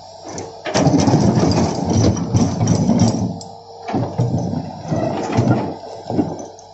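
Hitachi tracked excavator's diesel engine running under working load as it digs river gravel, rising and falling in level over a few seconds at a time, with occasional knocks of the bucket against stones.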